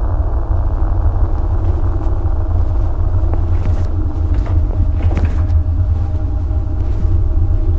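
Loud, steady low rumbling drone of a horror film's sound design, with a few faint sharp clicks through the middle.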